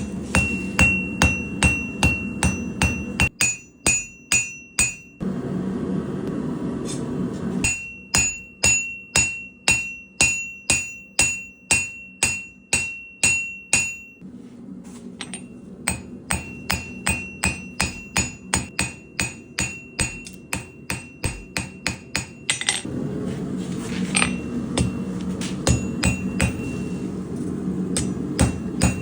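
Hand hammer striking hot high-carbon damascus steel on an anvil in runs of rhythmic blows, about two to four a second, each with a bright metallic ring. The hammering pauses twice, about five seconds in and again near the end, leaving a steady low rush.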